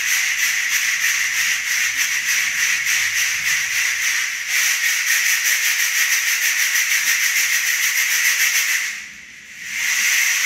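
Homemade rain stick sounding: a continuous rattling hiss like falling rain, made of fast fine pulses that become more even about halfway through. It dies down briefly near the end, then starts up again.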